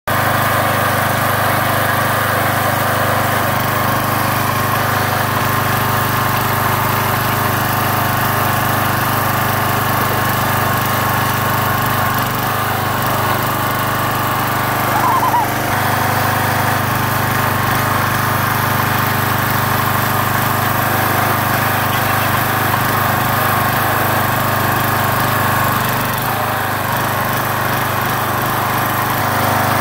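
Small gasoline engine of a hydraulic log splitter running steadily as the ram drives the splitting wedge slowly into a pumpkin.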